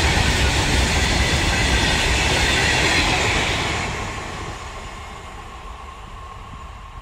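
Wheels of a long freight train's open-top wagons running past on the rails at speed, loud at first, then fading from about four seconds in as the brake van at the tail goes by and the train moves away.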